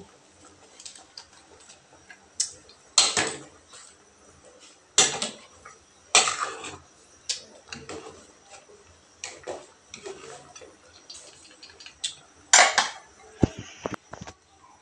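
Metal ladle knocking and scraping against the inside of a stainless steel stockpot while stirring soup. There are several sharp, irregularly spaced clanks among lighter clinks.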